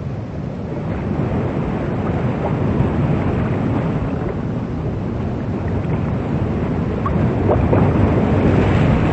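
Steady rushing noise of wind and water with no clear engine tone, slowly growing louder.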